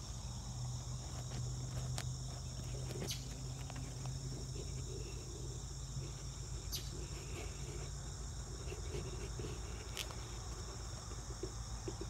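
Steady, high-pitched insect chorus, even and unbroken, with a low hum through the first half and a few faint clicks.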